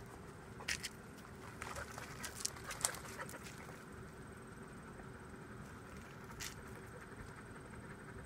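Dogs moving about on gravel: faint scuffs and clicks, a cluster in the first three seconds and one more a few seconds later.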